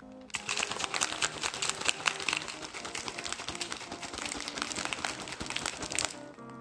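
Plastic protein shaker bottle shaken hard, ice cubes rattling and clattering inside it with the whey shake sloshing. The shaking starts just after the beginning and stops about half a second before the end.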